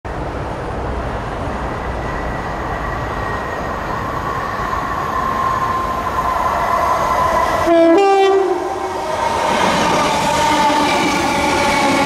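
Class 317 electric multiple unit approaching along the line, its rail noise growing louder. About eight seconds in it sounds a short two-note horn, a lower note then a higher one, which is the loudest moment. The noise of the train running past close by follows.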